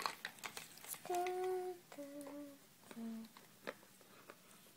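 A child humming three held notes, each lower than the last, starting about a second in, with a few light taps and clicks of small plastic toys being handled.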